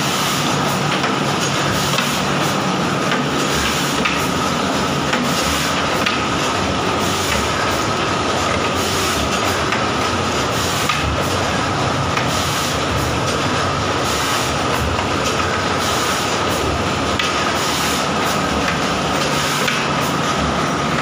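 Paper tube making machinery running steadily: a dense, continuous mechanical clatter with a steady high whine over it.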